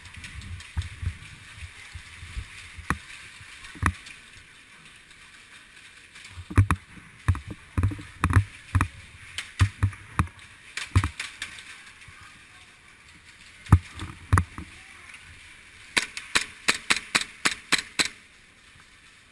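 Irregular sharp knocks and clicks over a steady faint hiss, bunched into quick runs in the middle and near the end.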